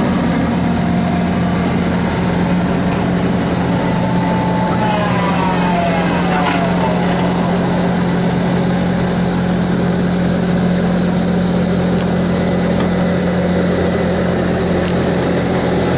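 Bobcat T770 tracked skid steer loader's diesel engine running steadily with a constant low hum. A few brief sliding tones come in about five to seven seconds in.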